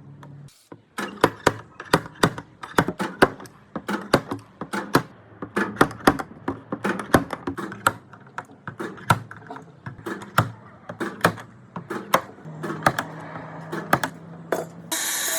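Hammer tapping on a sheet-metal door panel: rapid, irregular sharp taps, a few a second, over a low steady hum.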